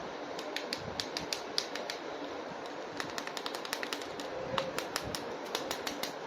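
Irregular run of sharp, light clicks and taps of hard plastic as a plastic action figure and its packaging are handled, over a steady background hiss.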